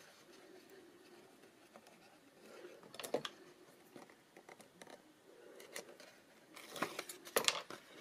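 Faint handling of patterned cardstock: light rustles with a few small clicks and crinkles, bunched together near the end, as the backing of double-sided tape is picked at with a paper piercer and the sheet is lifted.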